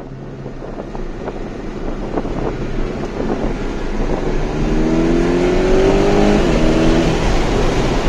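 A motor vehicle's engine accelerating and growing louder, its pitch rising slowly in the second half and dropping back about six seconds in, like a gear change.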